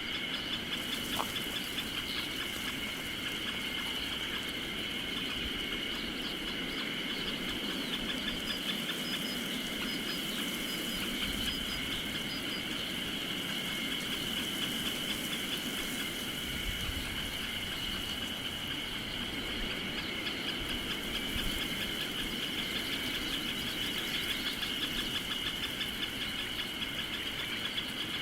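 Steady, high-pitched chorus of insects chirping in a continuous pulsing trill.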